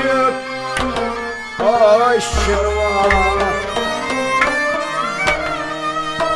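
Instrumental interlude of Kashmiri Sufi music: a bowed long-necked string instrument and a keyboard carry a gliding melody over regular hand strokes on a clay-pot drum (tumbaknari), with plucked lutes underneath.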